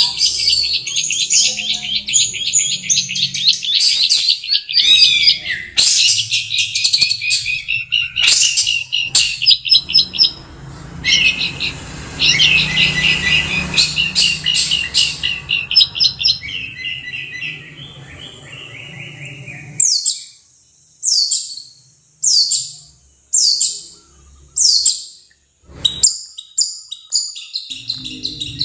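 Long-tailed shrike singing a fast, varied chattering song. In the last third it gives about five sharp calls, each sliding down in pitch, spaced about a second apart.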